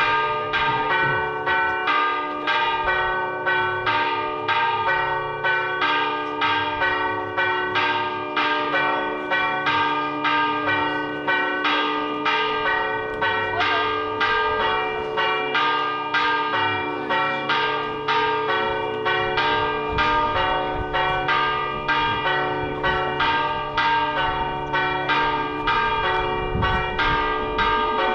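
Church bells pealing in a rapid, even repeat, about two strikes a second, their tones ringing on between strikes: a festive peal for a procession.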